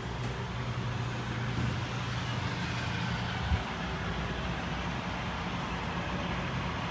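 Steady low engine hum heard inside a parked bus coach. One of its tones stops about halfway through with a short knock.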